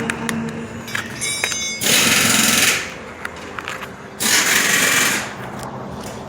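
Plastic door trim panel being pried and worked loose from the door, scraping and rattling in two loud stretches of about a second each, with a short fast rattle and scattered clicks between.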